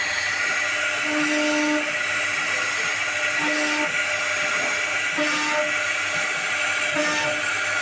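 CNC router spindle running steadily with a high whine as it carves HDHMR board, joined by a short lower hum that comes and goes about every second and a half to two seconds.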